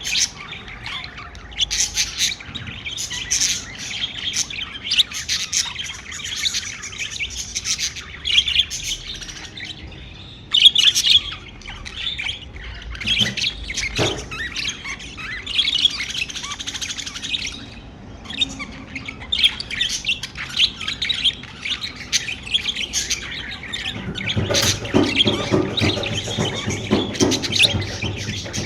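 Pet budgerigars chirping and chattering non-stop in quick, overlapping chirps and squawks, with a louder burst about ten seconds in.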